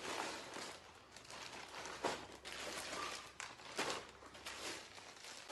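Plastic parcel packaging crinkling and rustling as it is handled, with a few sharper crackles.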